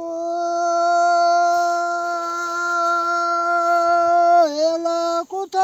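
A man singing a Pahari folk verse (doha) in the traditional open-throated style, holding one long steady note for about four seconds, then dipping in pitch and breaking into a few short notes near the end.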